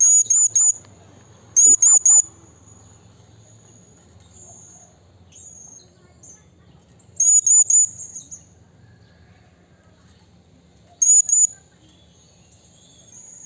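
Blue-crowned hanging parrot (serindit) calling: sharp, high-pitched notes in quick bursts of three or four, four bursts a few seconds apart, with softer single notes between. A faint low hum runs underneath.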